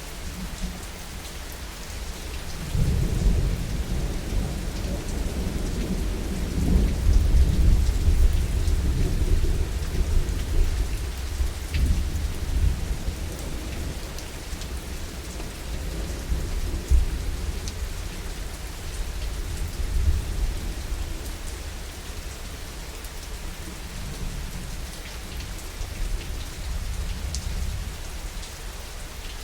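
Steady rain falling, with a long rolling rumble of thunder that swells about three seconds in, peaks, then slowly fades away over the next twenty seconds.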